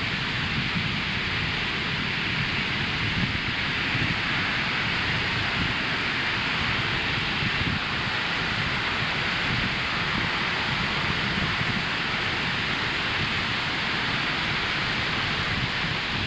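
Ocean surf washing onto a sandy beach: a steady, even rushing with a low rumble underneath and no single wave standing out.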